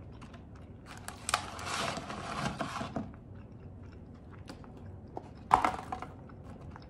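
Cardboard fry carton rustling as French fries are shaken out of it onto a wooden board: a dense crackling rustle for about two seconds, then one short, sharp rustle of the carton about five and a half seconds in.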